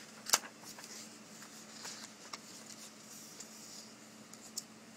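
Quiet room with a faint steady hum, broken by small handling clicks and taps: one sharp click about a third of a second in and a few fainter ticks after it.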